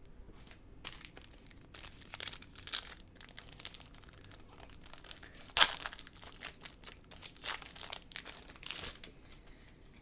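Baseball trading cards being handled, making irregular crinkling and rustling, with a sharper crinkle about five and a half seconds in.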